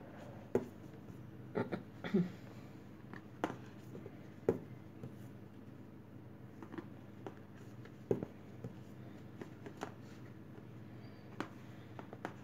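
Crafting handling noise: irregular soft clicks and taps of a metal crochet hook and a clear plastic lid as velvet yarn is looped and hooked around the lid, over a faint steady hum.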